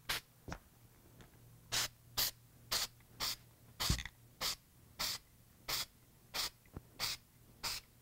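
Aerosol spray paint can released in a string of short hissing puffs, about two a second, laying on a light dusting coat. One puff about four seconds in comes with a dull knock.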